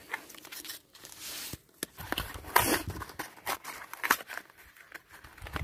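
Crackling plastic and cardboard packaging of an H7 halogen headlamp bulb being handled and opened, a string of irregular clicks and short rustles.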